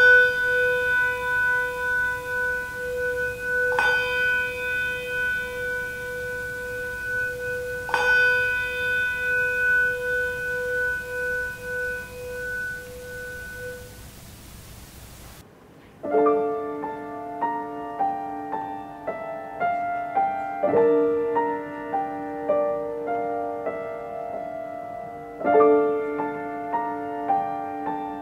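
A bell struck three times, about four seconds apart, each stroke ringing on a steady pitch and slowly fading. About halfway through, solo grand piano music begins, played slowly.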